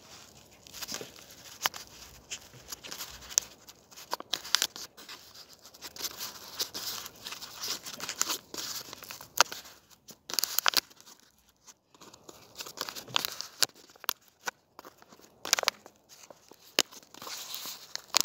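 Hands working loose, dry soil close to the microphone while setting a strawberry seedling into a planting hole: irregular crackling and crunching of crumbling earth.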